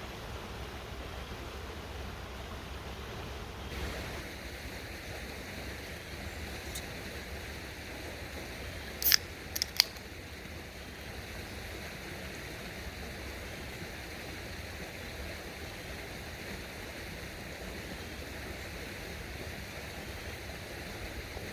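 Steady rushing outdoor ambience, its tone shifting about four seconds in, with three brief, sharp, high-pitched sounds a little after nine seconds.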